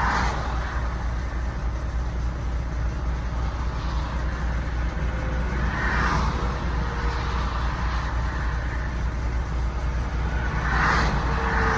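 Road traffic: a steady low rumble, with vehicles swishing past about six seconds in and twice near the end.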